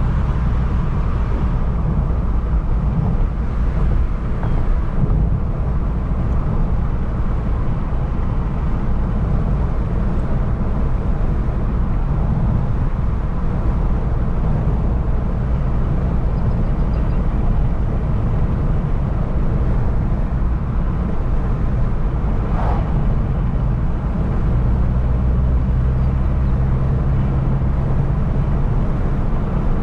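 A car driving along, heard from inside the cabin: a steady low engine and road rumble, with a steadier engine hum coming in about 24 seconds in.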